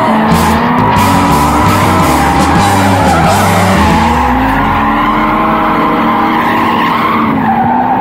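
Nissan 350Z drift cars in a tandem slide, engines revving up and down over squealing tyres. Music plays over them until about halfway through.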